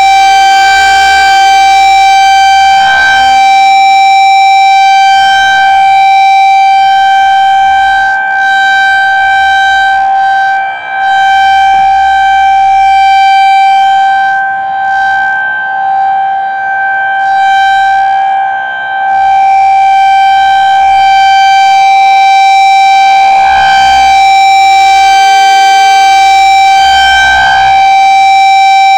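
Federal Signal 2001-SRN rotating electromechanical warning siren sounding its test, holding one steady high, loud tone. The pitch stays put while the loudness dips and comes back several times as the horn turns.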